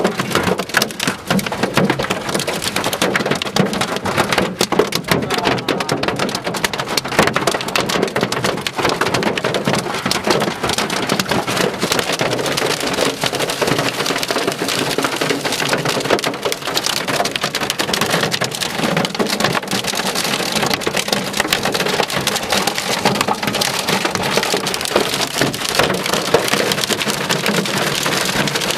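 Heavy storm rain mixed with hail pelting a car, a dense, unbroken clatter of countless small impacts.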